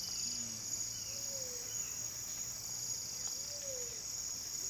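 Tropical rainforest ambience: a steady, high-pitched insect chorus, with faint low whistled notes that rise and fall, repeating about once a second.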